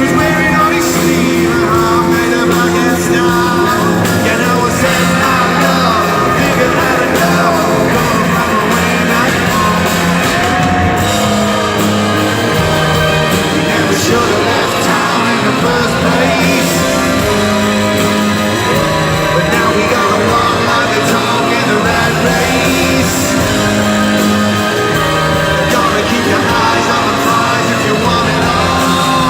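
Live rock band playing a song with singing, heard from the audience in a large hall.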